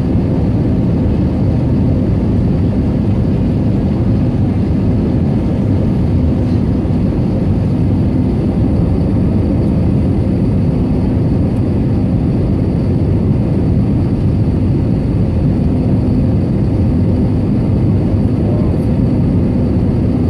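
Airbus A320neo passenger cabin noise on descent: the steady low roar of the engines and airflow heard from a window seat over the wing, with a faint steady hum under it.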